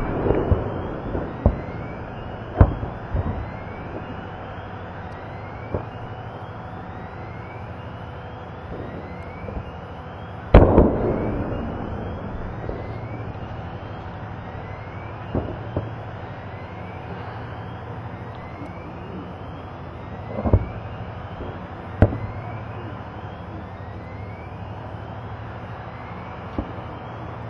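Ammunition cache cooking off in a fire: scattered explosions and sharp bangs over a steady background. The biggest blast comes about ten seconds in and fades slowly, and smaller bangs fall every few seconds.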